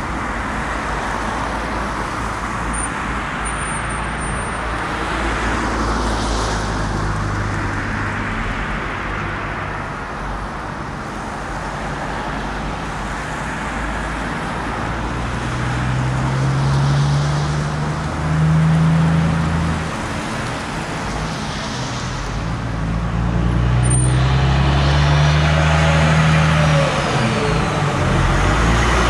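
Road traffic, with a heavy truck's diesel engine working under it, its pitch rising twice as it pulls away and accelerates. It grows louder near the end as the truck comes close, while cars pass.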